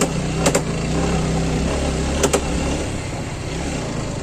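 Motorcycle engine running steadily while riding, with a few sharp knocks over it.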